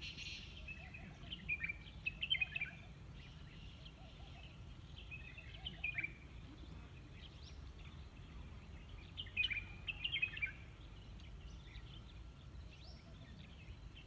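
Male Black Francolin singing: short phrases of quick, falling chirps, each about a second long, three times.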